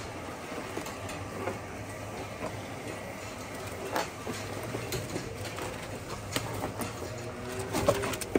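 Cattle barn sounds: a steady low hum under scattered knocks and clatters as Jersey heifers shift about in a pen with a concrete floor.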